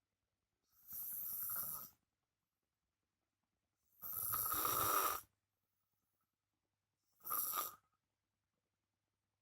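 A sleeping man snoring loudly, three snores a few seconds apart, the middle one the longest and loudest and the last one short.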